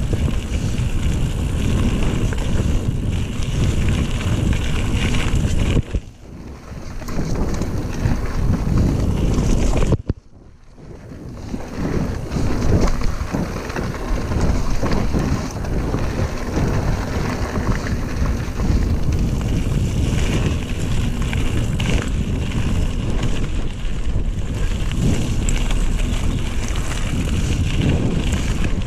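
Wind buffeting the camera microphone over the rumble and rattle of mountain-bike tyres rolling down a gravel forest trail. The noise drops off suddenly twice, about six and ten seconds in, and builds back up each time.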